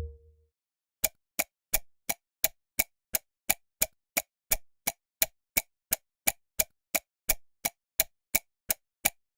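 Clock ticking fast as a time-passing sound effect: sharp, evenly spaced ticks at about three a second, starting about a second in, after a low tone fades out.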